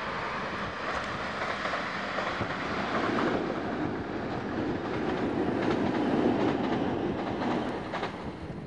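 Class 444 electric multiple unit running over a steel bridge: a steady rumble of wheels on rail that swells to its loudest about six seconds in and then eases, with a few light clicks near the end.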